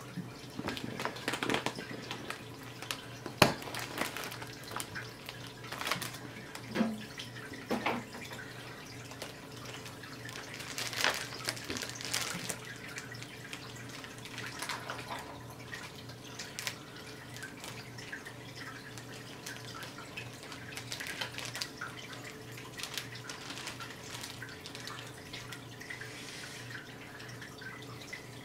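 Aquarium water circulating: a steady trickle and dripping over a low pump hum. Several sharp splashes and knocks come in the first dozen seconds, while shrimp are tipped in from a plastic bag at the surface.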